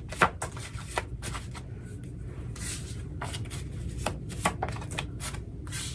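Tarot cards being shuffled and handled: a run of sharp card clicks and snaps with a few longer swishes, over a low steady hum.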